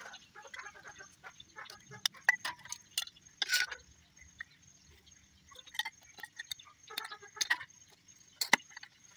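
Plastic impeller and diffuser stages of a submersible pump clicking and clinking as they are handled and slid onto the pump shaft: irregular sharp clicks and knocks, with a short scraping rustle about three and a half seconds in.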